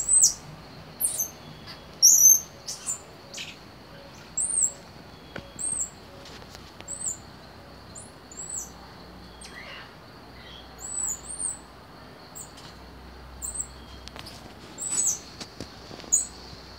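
Squirrel monkeys calling with short, high-pitched peeps, each rising and falling, repeated about once a second, with a few sharper chirps among them.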